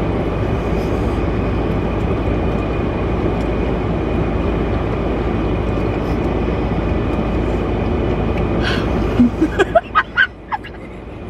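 Steady noise of a car cabin with the vehicle running, a low hum under an even hiss, which drops away sharply near the end, followed by a few short sounds.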